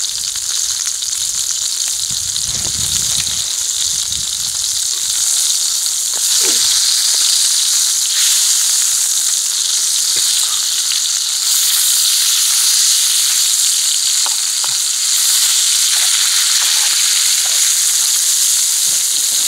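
Slab of wild hog meat sizzling steadily in a skillet over campfire coals, the frying getting a little louder in the second half, with a few faint clicks as the meat is turned by hand.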